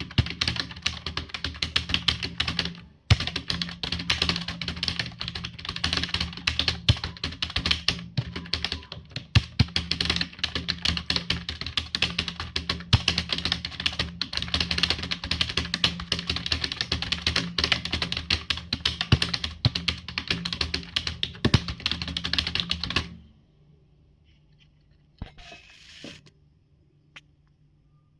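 Very fast, continuous typing on a computer keyboard, many keystrokes a second, with a brief pause about 3 seconds in. The typing stops abruptly about 23 seconds in, followed by a couple of faint clicks.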